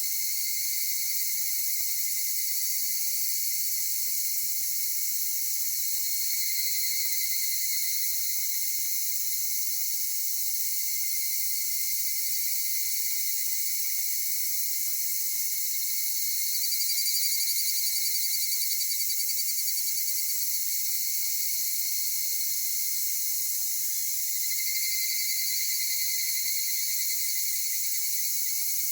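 Steady, dense chorus of singing insects with higurashi (evening cicadas) calling. A call grows louder about 17 seconds in, and others rise around 7 and 25 seconds in.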